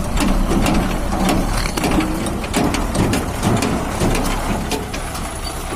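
A heavy diesel engine idling with a steady low rumble, under irregular crunching and clicking on gravel.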